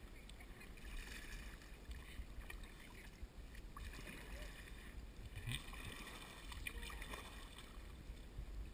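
Faint paddle strokes from a kayak, the paddle dipping and splashing in calm river water a few times, over a low steady rumble.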